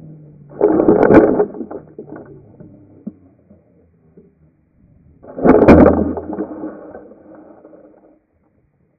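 Slowed-down onboard audio of a Hobbyking Bixler 3 foam RC plane crash-landing and tumbling through grass: two drawn-out, deep impact-and-scrape noises, one about half a second in and one about five seconds in, each fading away slowly.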